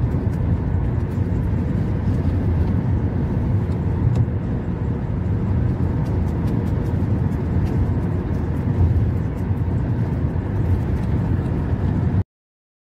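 Steady low rumble of road and engine noise heard from inside a moving car, with no changes in pace; it cuts off suddenly near the end.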